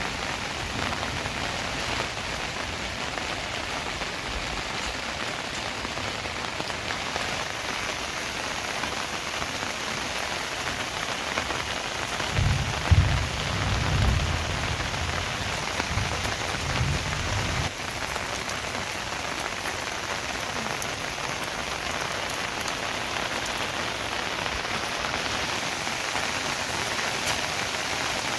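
Steady rain falling and pattering on surfaces. Midway through there is a low rumble lasting a few seconds.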